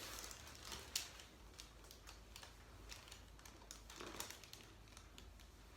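Faint scattered clicks and rustles of a person shifting position on a padded chiropractic table, with one sharper click about a second in.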